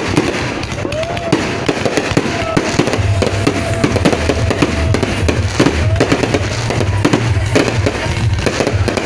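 Fireworks display: a dense run of bangs and crackling shots with short whistles. Music with a deep pulsing bass comes in about three seconds in.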